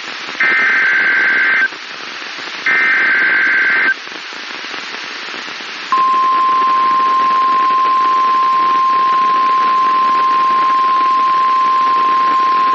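NOAA Weather Radio emergency alert signal: two short bursts of SAME digital header data tones, then a pause, then from about six seconds in the long, steady, single-pitch 1050 Hz warning alarm tone that signals a tornado warning is about to be read. Radio static hiss runs underneath.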